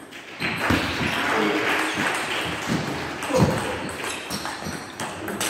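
Table tennis rally: the celluloid ball ticking off the bats and the table in a string of short, sharp clicks. The clicks sit over a steady background haze of hall noise.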